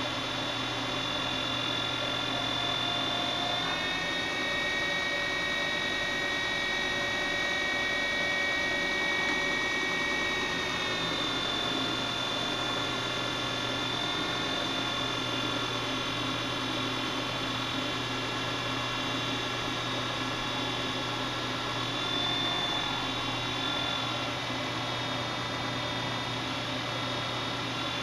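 2x72-inch belt grinder running steadily, its belt grinding the edge of a metal piece against the 10-inch contact wheel. It gives a steady whine whose high tones shift about four seconds in and again around eleven seconds, as the contact on the metal changes.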